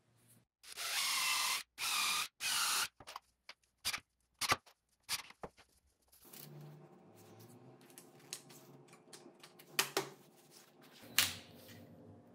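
Wood being handled on a table saw's steel top. Three quick scraping slides come first, then scattered clicks and knocks over a faint steady hum, with two sharper knocks near the end.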